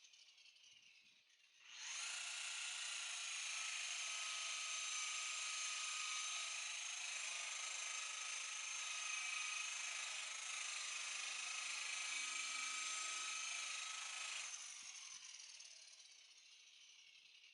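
Electric buffer motor switched on about two seconds in, running steadily with a high whine, then switched off and winding down near the end.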